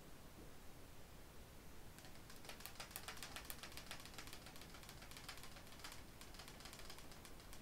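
Deck of tarot cards being shuffled: a faint, fast run of light clicks starting about two seconds in.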